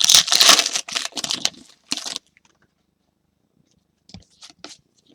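Trading cards being handled and slid against one another, a dense rustling for about two seconds, then a few light clicks near the end.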